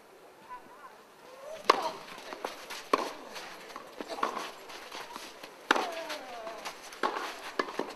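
Tennis rally on a clay court: sharp pops of rackets striking the ball, about every one to one and a half seconds, starting a little under two seconds in, the first the loudest, with players' voices between the hits.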